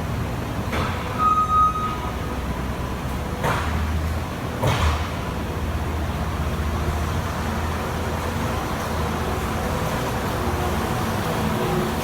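New Holland L220 skid steer's diesel engine running steadily while it works. A few knocks come in the first five seconds, and a brief high whistle sounds about a second in.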